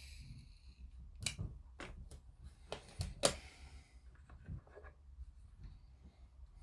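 Plastic model kit parts being handled and fitted together: a scatter of small sharp clicks and taps, the loudest about three seconds in, with brief scraping rustles.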